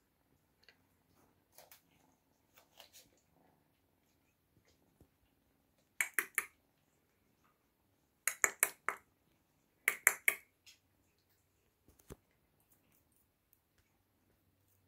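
Sharp clicks or taps in quick runs of three to five, three runs about two seconds apart in the middle, after a few faint scattered clicks, with one dull knock a little later.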